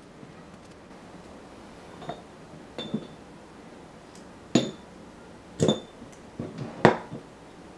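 Steel spokes and a metal bicycle hub clinking against each other and against a glass jar as the laced hub is handled and set down: about five sharp clinks, spaced out, a few with a brief ring, the loudest about halfway through and near the end.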